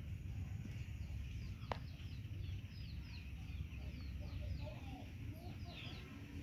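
Birds chirping over and over in short, high, falling notes above a low steady rumble, with one sharp click about two seconds in.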